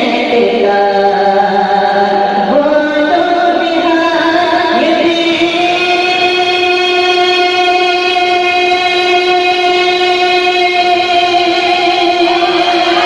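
A man singing a line of an Urdu naat solo. He moves between a few notes for about three seconds, then holds one long steady note.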